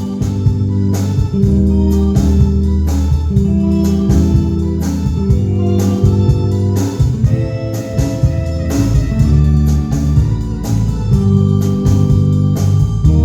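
Band music led by an electric organ holding sustained chords, with guitar and a steady, hard-hit drum beat.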